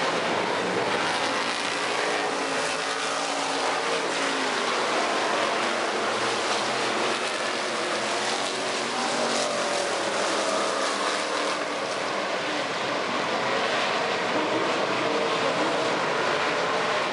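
A pack of hobby stock race cars running at speed on a dirt oval, many engines overlapping, their notes rising and falling as the cars pass and get on and off the throttle.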